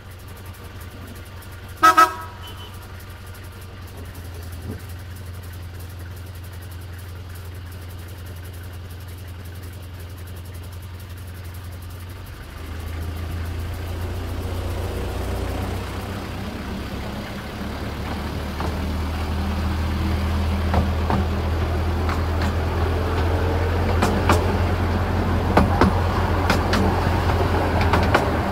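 Miniature railway train: one short, loud toot from the locomotive about two seconds in, then a steady low drone of the train running that grows louder from about twelve seconds in as it gets under way, with scattered clicks of the wheels over the track near the end.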